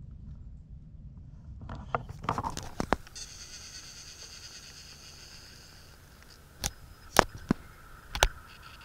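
Footsteps through woodland litter: crackling of dry leaves and twigs underfoot, with four sharp snaps in the last two seconds. A steady high buzz sits behind them from about three seconds in.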